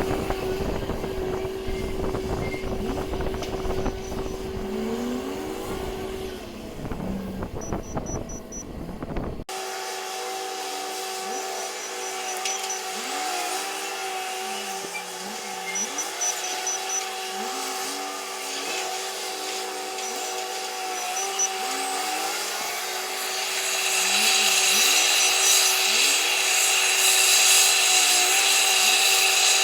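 Large wheel loader's diesel engine running and working, its pitch rising and falling again and again as it revs. The sound changes abruptly about nine seconds in, and a rougher hiss builds near the end.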